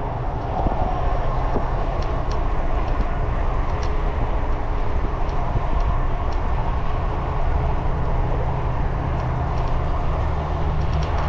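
Steady wind rush and rumble on the microphone of a riding e-bike, with tyre noise from the paved trail and a few faint ticks.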